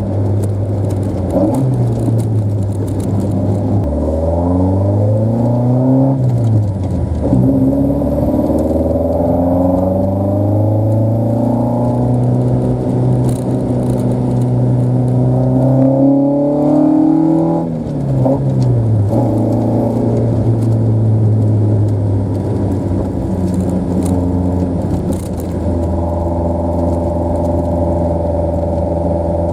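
Toyota AE86's four-cylinder engine under way. Its revs climb briefly and drop back about five seconds in, then climb slowly through a long pull and fall off after about seventeen seconds. Near the end they settle to a steady pitch.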